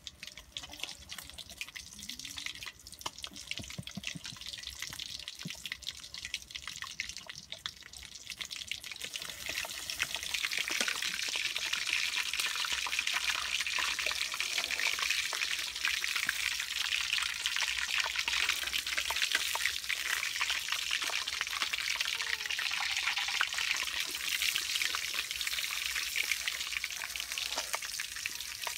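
Fish frying in hot oil in a wok, a steady crackling sizzle that grows louder and denser about ten seconds in.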